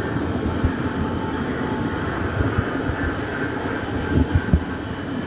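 Train running on the track: a steady rumble with irregular low thumps, several close together about four seconds in.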